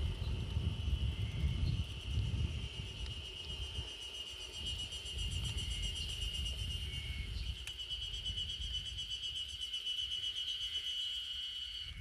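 Wind gusting on the microphone, a low rumble that is strongest in the first few seconds, with a steady, high, finely pulsing trill from insects or birds in the background throughout.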